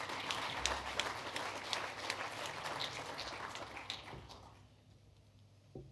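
Audience applauding: a dense patter of clapping that dies away about four and a half seconds in.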